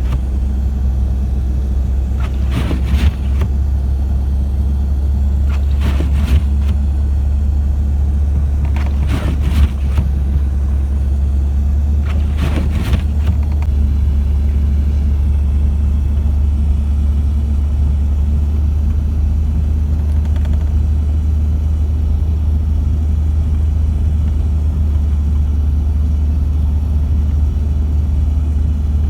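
Vehicle driving through deep snow, a steady low engine and road rumble, with a few short knocks in the first half.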